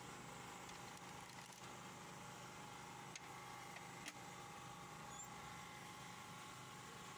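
Faint steady hum of a photocopier, with two soft clicks of its plastic parts being handled about three and four seconds in.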